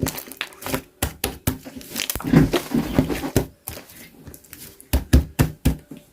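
Golden and pink slime being squished and stretched together by hand, giving a run of sticky clicks, crackles and air-bubble pops. The sound is densest in the middle, with a few loud pops about five seconds in.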